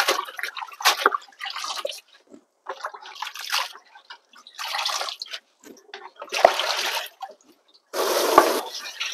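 Water splashing and sloshing in a plastic basin in a steel sink as hands rub and rinse pak choy, in short irregular bursts. Near the end the tap runs into the basin for a moment.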